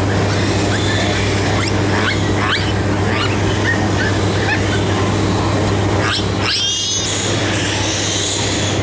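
Piglets squealing: several short rising squeals in the first few seconds and a louder one about six and a half seconds in, over a steady low hum.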